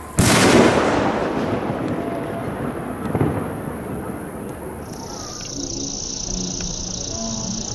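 Homemade 2-inch cylindrical salute shell bursting with one loud bang, followed by a rumbling echo that fades over several seconds. Insects chirp steadily in the second half.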